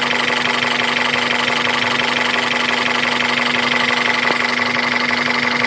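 Honda F20B four-cylinder engine idling steadily with a fast, even knock in its running, the knock the owner is recording to find its cause.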